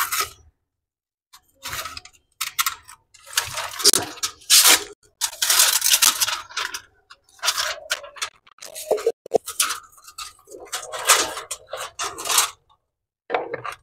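Irregular scraping and rustling with a few sharp clicks around the middle, from a tape measure and plastic water pipe being handled while the pipe run is measured.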